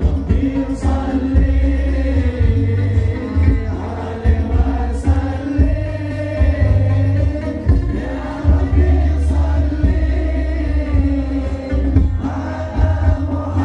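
Live Islamic devotional song (sholawat qasidah) over a loud sound system: a male lead voice singing into a microphone over a heavy bass-drum pattern, with a high crash about every four seconds.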